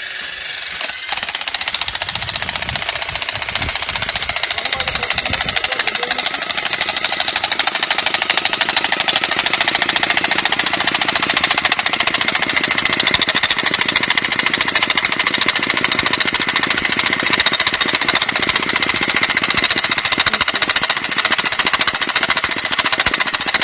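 A machine running steadily with a loud, rapid, even pulsing that starts abruptly about a second in.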